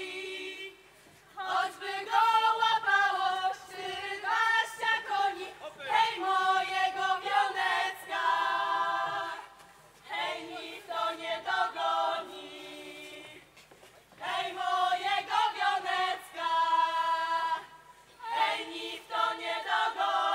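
A group of women singing a Spisz folk song in unison, unaccompanied. The song comes in phrases of a few seconds, with brief breaks between them.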